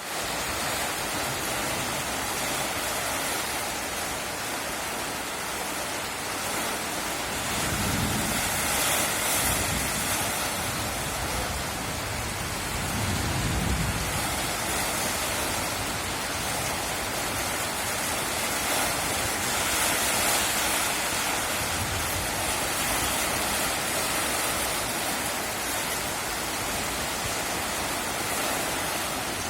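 Steady heavy rain, with low rolls of distant thunder swelling up three times.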